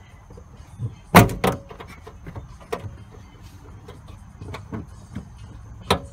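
Plastic interior trim in the back of a 2016 Honda Civic being pulled and popped loose by hand: two sharp snaps in quick succession about a second in, then scattered lighter clicks and knocks of the plastic being handled, with another sharp snap near the end.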